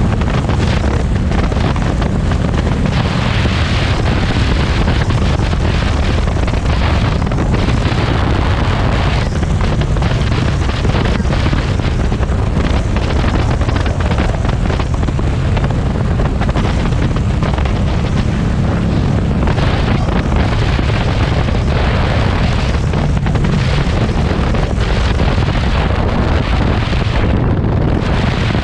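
Heavy wind buffeting on the microphone over the steady low rumble of a Harley-Davidson Street 500's V-twin engine and exhaust while riding.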